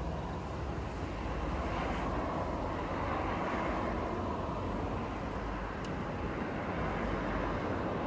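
Wind blowing across the microphone: a steady rushing noise with an uneven low rumble.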